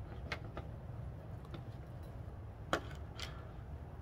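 A few light, separate clicks and knocks of a motorcycle tank bag's plastic strap fittings being handled and fitted, over a steady low hum.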